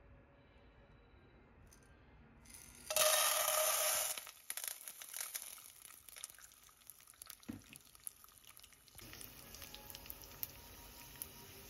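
Dried popcorn kernels poured from a clear plastic container into a nonstick pan: a loud pouring rush about three seconds in that lasts about a second, followed by scattered clicks of single kernels dropping into the pan.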